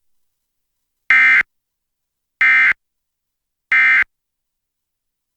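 Emergency Alert System end-of-message signal: three short, identical buzzy data bursts about a second apart, the SAME digital code that marks the close of a broadcast alert.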